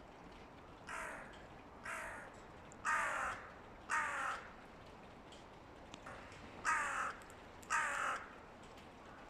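Hooded crow cawing: six harsh caws, four about a second apart, then after a pause two more, the first two fainter than the rest.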